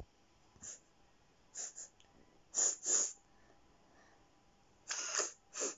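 A child sniffing a cake-scented squishy toy: about eight short, quick sniffs, several in pairs, with pauses between.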